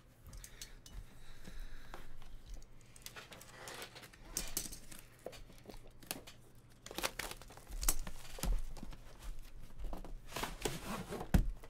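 Plastic wrap crinkling and tearing while a cardboard trading-card box is handled and a plastic-wrapped aluminium card case is slid out, with scattered clicks and a sharp knock near the end.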